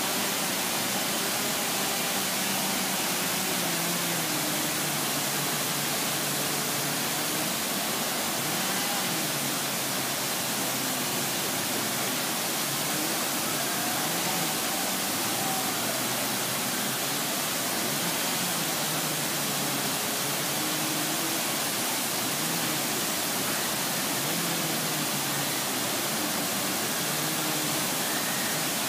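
Large waterfall: a steady, unbroken rush of falling water.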